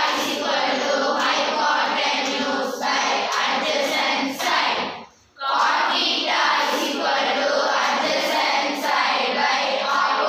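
A class of schoolgirls singing trigonometry formulas together as a song, with a brief pause about halfway through.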